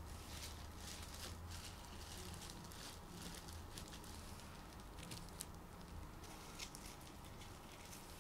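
Quiet handling of soft mashed-potato dough being shaped by hand: faint scattered clicks and soft squishes over a low steady hum.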